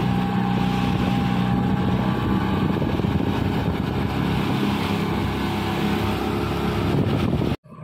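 Speedboat's outboard motor running steadily under way, with the rush of water along the hull. The sound cuts off suddenly near the end.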